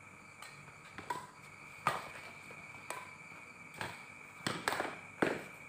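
Badminton rackets striking a shuttlecock in a fast rally: a series of sharp smacks about once a second, with three in quick succession near the end.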